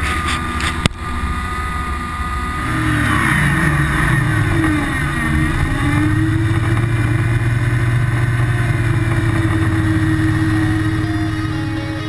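Tube-frame off-road buggy's engine revving: it picks up about two and a half seconds in, dips briefly, then holds at steady high revs. A single sharp knock sounds about a second in.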